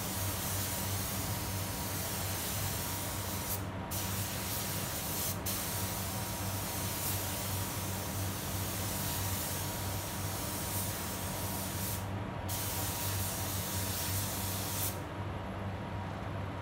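Compressed-air paint spray gun (gravity-feed) hissing as it sprays paint onto a car's rear quarter panel in passes. The hiss breaks off briefly about 4 seconds in and again about 12 seconds in, then stops about 15 seconds in. A steady low hum runs underneath.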